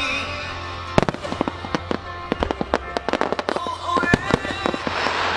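Aerial firework shells bursting into white, glittering stars: a dense, irregular run of sharp cracks and pops starting about a second in, over background music.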